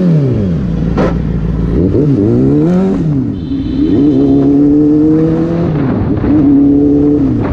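Sport motorcycle engine heard from the bike itself, revving up and easing off several times in city traffic, its note holding steady for a couple of seconds in the middle of the stretch.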